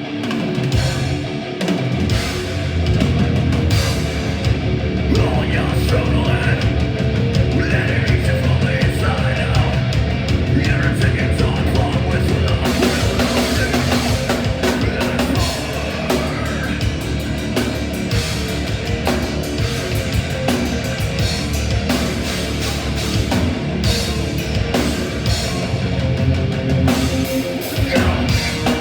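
Live heavy metal band playing at full volume: distorted guitars, bass and a pounding drum kit with fast double-bass drumming.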